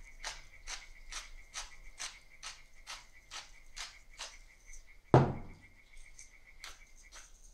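Hand-twisted salt grinder grinding coarse salt over raw steak: a steady run of crunchy clicks, about two a second. About five seconds in comes one loud knock as the grinder is set down on the table, followed by a few clicks of a pepper grinder starting.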